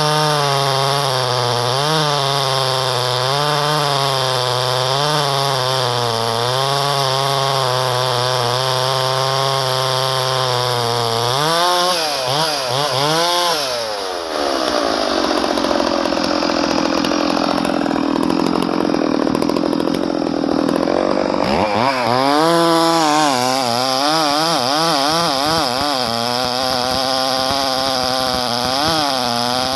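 Two-stroke Husqvarna chainsaw running, its engine speed wavering up and down. About twelve seconds in it revs up into a higher, rougher stretch, then drops back to the wavering run about ten seconds later.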